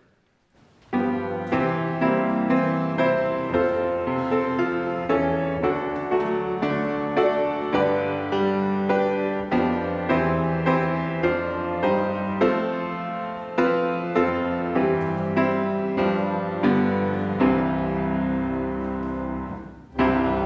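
Piano playing a hymn tune as the introduction to a hymn, in steady chords that begin about a second in. Near the end it settles on a long held chord with a low bass note, and there is a brief break just before the music carries on.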